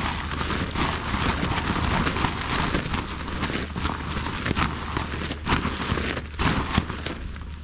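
Tent fly sheet flapping and snapping as it is shaken out by hand, a quick uneven run of fabric snaps, to shake off dirt and moisture.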